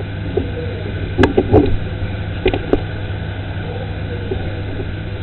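A steady low mechanical hum, with a few sharp clicks and knocks about a second in and a couple more about two and a half seconds in.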